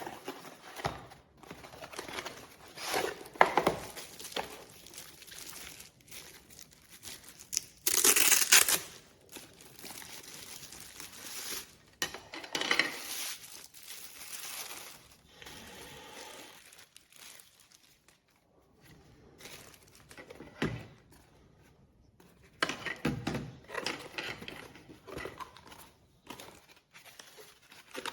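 Irregular crinkling and rustling of handled material, like plastic packaging, with a louder burst about eight seconds in.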